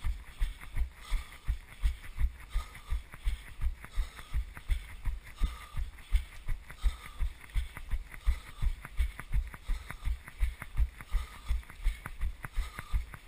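Footfalls of a runner carrying the camera, running on wet asphalt: a steady thud about three times a second as each stride jolts the camera, with a hard breath about every second and a half.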